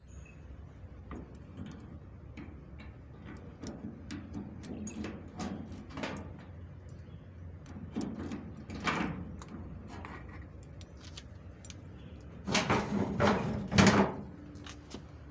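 Scattered knocks, clicks and clatter of things being handled and moved, door-like, with a louder run of bangs about three-quarters of the way through.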